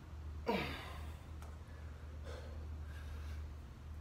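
A man's forceful exhale with a voice in it, falling in pitch, about half a second in, the strain of a one-legged pistol squat holding two kettlebells; fainter breaths follow. A steady low hum runs underneath, and a faint click comes about a second and a half in.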